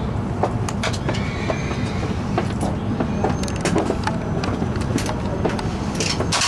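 E5 series Shinkansen train heard from inside the passenger car: a steady low rumble with many irregular clicks and knocks from the wheels over rail joints and points, and a faint wheel squeal now and then, as the train approaches its terminus.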